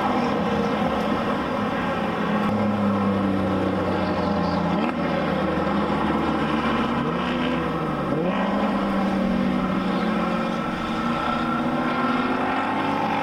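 Engines of several cars lapping a road-racing circuit, overlapping one another, their pitch climbing and dropping several times as they accelerate and shift.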